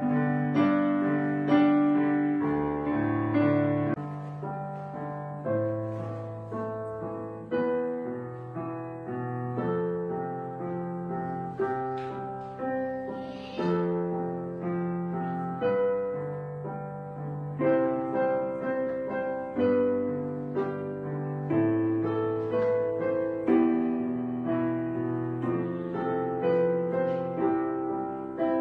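Background piano music: a gentle melody of struck notes that ring and fade, at a steady unhurried pace.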